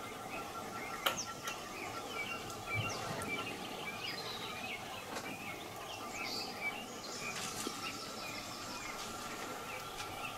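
Rainforest-clearing ambience: many small birds chirping over a steady, pulsing insect trill, with a single sharp click about a second in.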